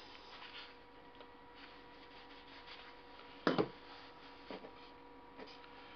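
Quiet workshop room tone with a steady faint hum, broken by a few light handling knocks and taps, the loudest a quick double knock about three and a half seconds in.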